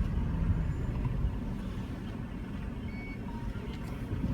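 Steady low rumble of a car driving at road speed, heard from inside the cabin, with a few faint short tones about three seconds in.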